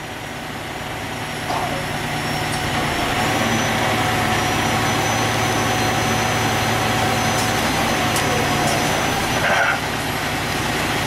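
Heavy diesel engine running at a steady idle, with a constant whine above it. The sound grows louder about a second and a half in, and there is a brief burst of noise near the end.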